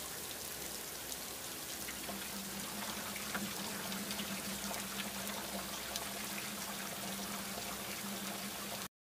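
A steady hiss with fine crackling, like light rain or trickling water, under a faint low hum; it cuts off suddenly near the end.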